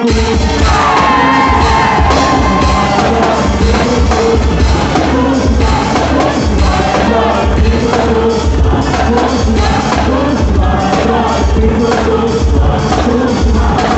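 Loud forró-style quadrilha dance music with a singing voice over a steady thumping bass beat and percussion, with some shouts mixed in.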